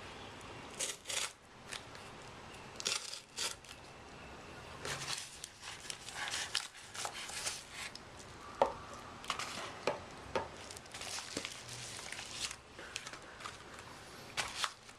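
A mailing package being opened by hand: packaging crinkling, rustling and tearing in irregular bursts, with scattered sharp clicks, the sharpest a little past the middle.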